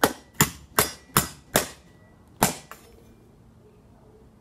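An iPhone being struck hard with a small metal spade: five sharp hits in quick succession, about two and a half a second, then one more a moment later.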